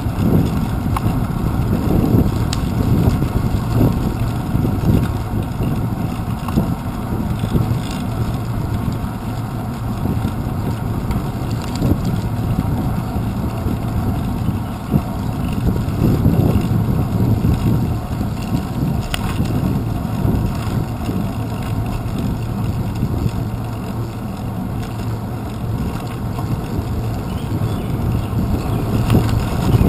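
Steady low wind and road noise on a handlebar-mounted GoPro as a bicycle rolls along a paved path, with a few faint clicks.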